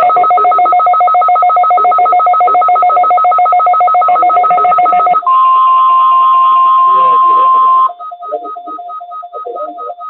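Many weather alert radios sounding their rapid two-pitch electronic alarm beeps at once for a required weekly test. A little after five seconds in, a single steady tone of the NOAA Weather Radio warning alarm cuts in for nearly three seconds, then the radios go on beeping in short pulses, about four a second.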